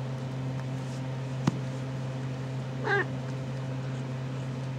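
A young RagaMuffin kitten gives one short meow about three seconds in. A single sharp click comes a second and a half in, over a steady low hum.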